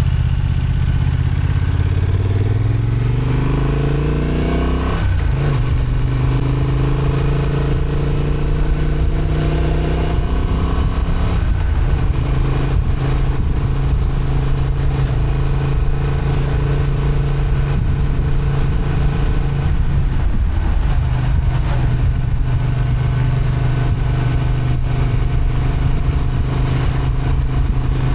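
Honda XL750 Transalp's 755 cc parallel-twin engine, restricted to 35 kW, revving up for the first few seconds, then dropping sharply at a gear change about five seconds in. It then runs at steady revs, with brief dips around twelve and twenty seconds, over a steady rushing noise.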